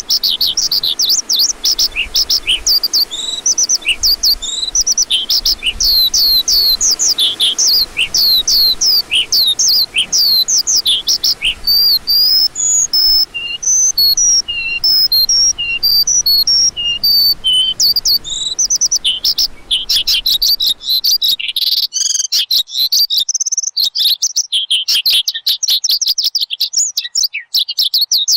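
A lark singing a long, unbroken stream of quick, high, down-slurred notes. About twenty seconds in, the song turns faster and denser, and the faint background hiss beneath it drops away.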